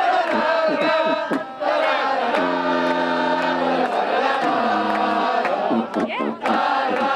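A crowd of band members singing and chanting together loudly. A low, steady held note sounds for over a second about two and a half seconds in, and again briefly near the five-second mark.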